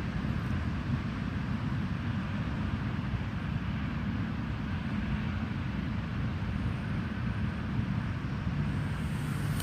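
Steady low rumble and hiss of outdoor background noise, with a low hum joining near the end.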